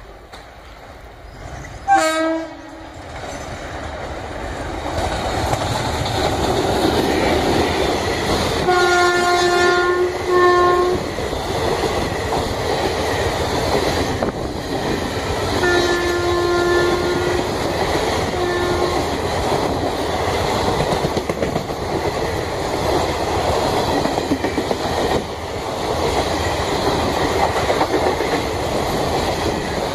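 WAP4 electric locomotive and its passenger coaches approaching and rolling past, the rumble and clickety-clack of wheels over the rails building up from about four seconds in and continuing as the coaches go by. The horn sounds twice as a long blast followed by a short one, about nine and about sixteen seconds in, and a brief loud toot comes about two seconds in.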